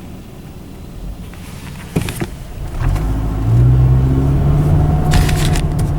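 Car engine and road rumble heard from inside the moving car. A couple of knocks come about two seconds in, and about three seconds in the engine hum grows louder and holds steady as the car picks up speed.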